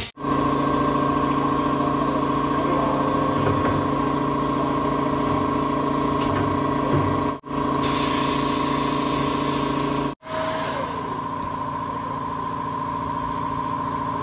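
Steady mechanical hum of a running motor at one constant pitch, dropping out abruptly three times and coming straight back.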